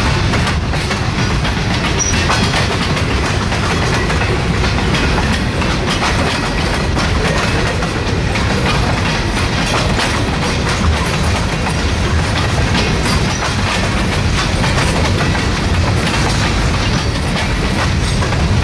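Freight cars (tank cars, then covered hoppers) rolling past, their wheels clicking over the joints of jointed rail again and again over a steady rumble.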